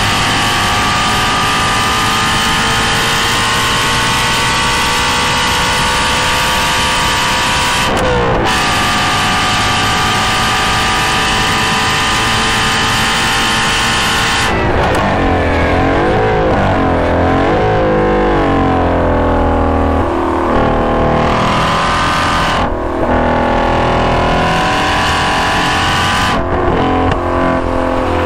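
2016 Shelby GT350's 5.2-litre flat-plane-crank V8 through a GT350R exhaust, recorded close to the tailpipe, running flat out with its note climbing slowly and a quick gear change about eight seconds in. Around halfway the revs swing up and down several times as it shifts down, then it pulls again with brief lifts near the end.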